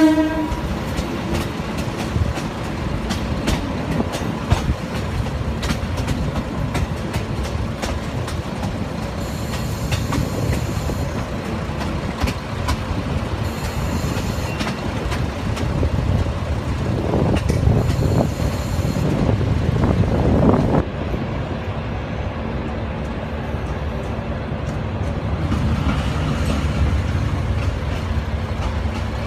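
Myanmar Railways Yangon Circular Line train running along the track, heard from inside the carriage: a steady rumble of wheels on rails with scattered sharp clicks from the rail joints. The rumble swells louder about two-thirds of the way through.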